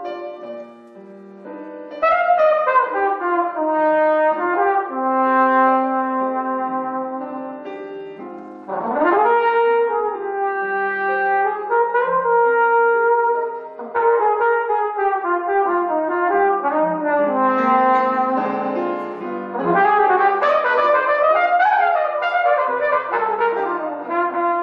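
Trumpet playing slow phrases of held notes, with a rising scoop into a note about nine seconds in.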